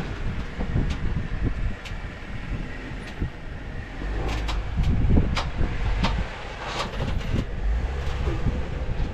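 Off-road 4x4 crawling slowly over rock: an uneven low engine rumble with scattered sharp clicks and knocks.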